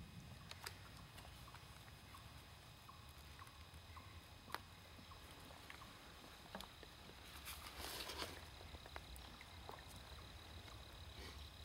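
Faint footsteps on dry leaves and creek stones: scattered light clicks, and a longer rustle about eight seconds in, against otherwise near silence.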